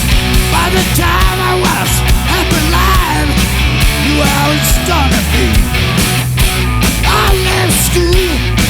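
Loud hard rock music, with a pitched lead line bending up and down over a dense, steady band backing.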